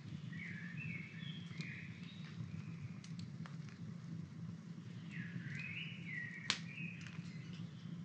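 Small wood campfire crackling with scattered sharp snaps, the loudest about six and a half seconds in, over a steady low rumble. A songbird sings two short stepped phrases, one near the start and one a little past the middle.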